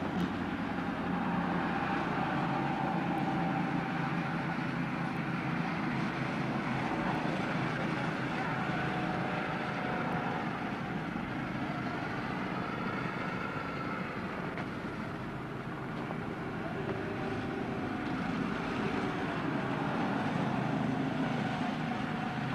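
Small go-kart engines running continuously as karts lap the track, with a whine that rises and falls as a kart passes about halfway through.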